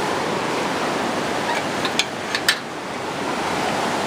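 The Van Duzen River running near flood stage: a steady rushing of fast, high water. A few sharp clicks come about two seconds in.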